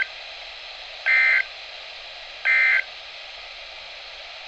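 NOAA Weather Radio's Emergency Alert System end-of-message tones: short warbling two-tone digital data bursts (SAME code), the first ending at the very start and two more about 1.4 s apart. Their sending marks the close of the required weekly test. Steady radio hiss lies under and after them.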